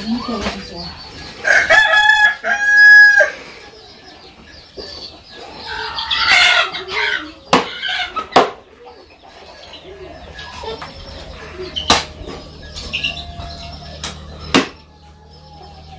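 A rooster crows once, about two seconds in; this is the loudest sound. A few sharp knocks follow later, spaced several seconds apart.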